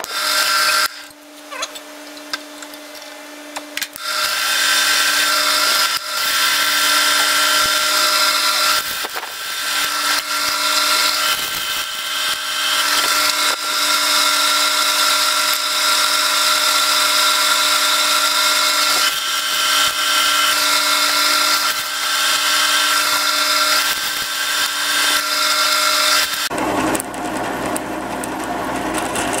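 A drill press bit cutting 1/4-inch holes through half-inch-thick stainless steel flat bar: a steady motor hum under a loud, high cutting sound. It comes in a few short bursts in the first seconds, then runs steadily, changing near the end.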